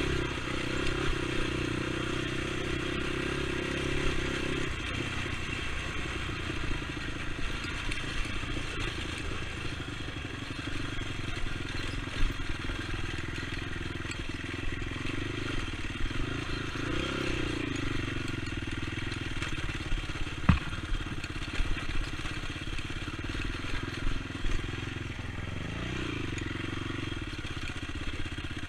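ATV engine running steadily, its pitch rising and falling several times with the throttle, with one sharp knock about twenty seconds in.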